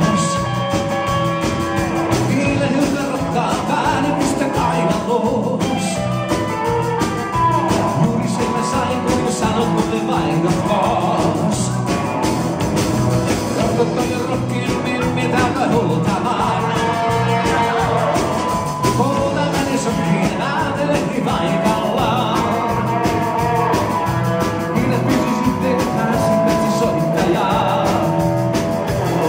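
Live rock band with accordion, electric guitar and drums playing at a steady beat, with a male singer's vocals at times.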